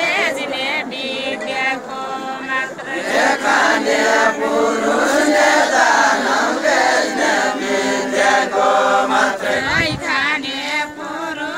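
Group of voices singing a Deuda folk song without instruments: several voices together, holding long, wavering notes.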